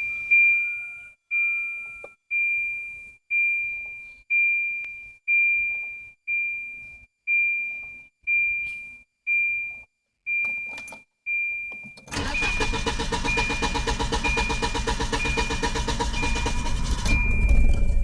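A car's warning chime dinging about once a second, then about two-thirds of the way through the 1994 Volvo 940's engine cranks over for around six seconds, getting louder near the end: a hard start.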